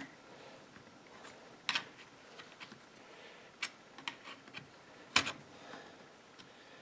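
Scattered faint clicks and taps of a thin metal pick working the plastic housing and wire clip of a Husqvarna Rancher 455 chainsaw as the ignition wire is unclipped; a handful of sharp clicks, the loudest about five seconds in.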